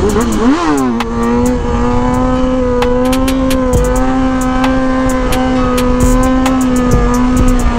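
Kawasaki ZX-6R 636 inline-four engine at motorway speed. It revs up and drops in pitch as it shifts up a gear just under a second in, then holds a steady engine note under wind noise.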